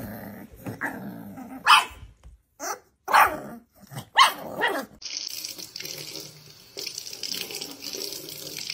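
Puppies yipping, several short high barks in the first few seconds. Then a kitchen faucet runs a steady stream of water into a stainless steel sink.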